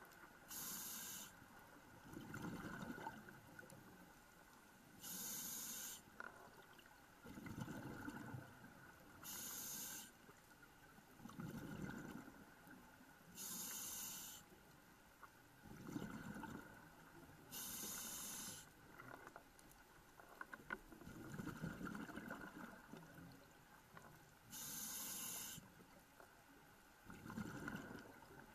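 Scuba diver breathing through a regulator, heard through the camera's underwater housing: a short hiss on each inhale, then a longer low bubbling rumble as the exhaled bubbles vent. It repeats about every four seconds, six breaths in all, with one longer pause between breaths.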